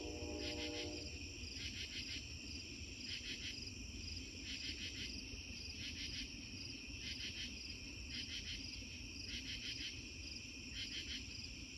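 Crickets chirping in steady repeating pulses. A distant Amtrak train horn, a chord of several tones, holds and cuts off about a second in, over a low rumble.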